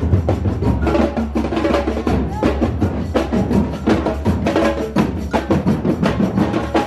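Music with a busy percussive beat of sharp, frequent hits over pitched tones.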